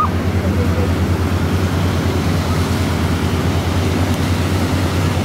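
River sightseeing boat's engine passing on the river, a steady low droning hum.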